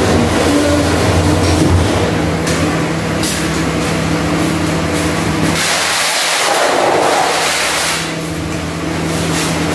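A vertical gas-and-charcoal pig-roasting oven on a test run makes a steady mechanical hum under a rushing noise. About six seconds in, the low hum drops away for a couple of seconds while the rushing grows louder, then the hum comes back.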